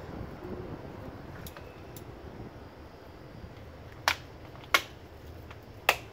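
Hand-working sounds at a potted bonsai: a couple of faint clicks in the first half, then three sharp clicks in the second half, the loudest things heard, over a low steady background.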